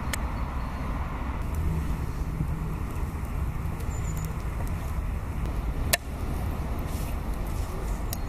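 Steady low outdoor rumble, with a sharp click just after the start and another about six seconds in.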